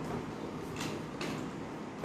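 Clinks and rattles of cosmetics being handled in a makeup case, in two short bursts about a second apart near the middle, over a faint steady background hiss.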